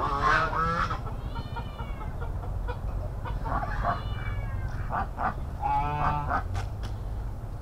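Farmyard poultry calling: two drawn-out rising-and-falling calls and a few shorter honking calls from a pen of ducks, geese and chickens. A steady low hum sits underneath.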